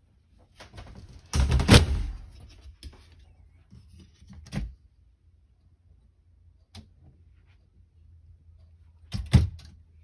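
Shower and cabinet doors being handled: a loud rattling bang about a second and a half in, a shorter knock a few seconds later, a light click near the middle, and a double bang near the end.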